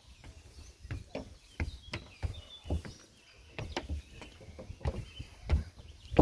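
Footsteps of people walking up wooden steps and across a wooden footbridge: dull thuds about two a second, the heaviest near the end. Birds chirp faintly.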